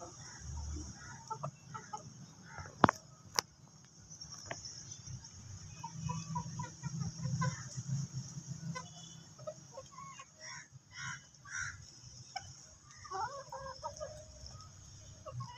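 Flock of desi aseel chickens clucking in short, scattered calls while feeding, with two sharp clicks about three seconds in and a steady high-pitched hiss behind.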